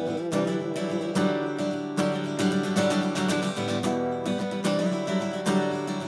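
Solo acoustic guitar strummed in steady chords, about two to three strokes a second, with no voice.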